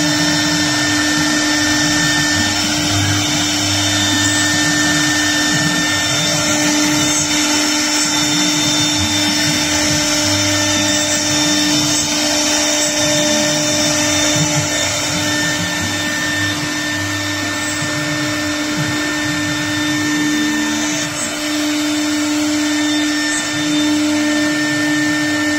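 TigerTec CNC router's spindle running at speed, a steady whine over the rasp of its bit cutting an aluminium composite panel.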